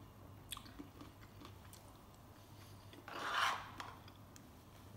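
A man eating fruit salad: quiet chewing and a few light clicks of a metal spoon against a plastic bowl, then a louder scrape lasting about half a second a little after three seconds in, as the spoon scoops through the bowl.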